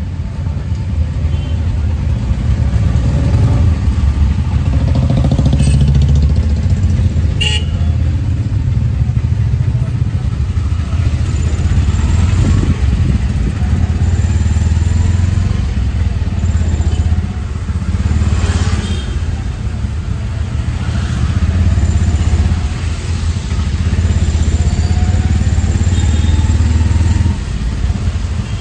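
Auto-rickshaw engine running steadily while the three-wheeler drives through traffic, heard from inside the open cab, with one sharp click about seven and a half seconds in.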